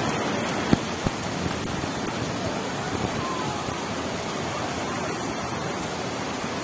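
Steady rushing noise of a creek in flood, its muddy torrent pouring over a low crossing. Two short sharp knocks stand out about a second in.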